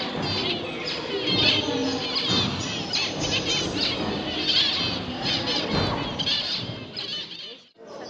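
Many caged finches, zebra finches among them, chirping and calling over one another in quick short notes, with a low hubbub underneath. The sound drops away briefly just before the end.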